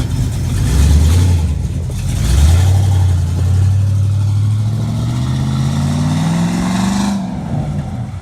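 A vehicle engine accelerating: a short rev about a second in, then the revs climb steadily for about four and a half seconds before falling away near the end.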